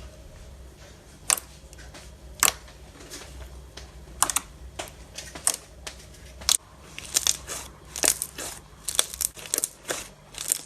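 Slime being squeezed and poked by hand, giving sharp wet clicks and pops. They come about a second apart at first, then several a second in the second half.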